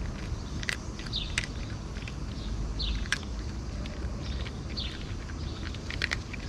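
A cat crunching dry kibble, with a few sharp crunches spread through, while a bird gives several short falling chirps. A steady low rumble runs underneath.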